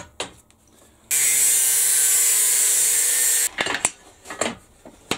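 A power tool cutting or grinding metal, running in one even burst of about two and a half seconds, then a few sharp knocks and clatter as it stops.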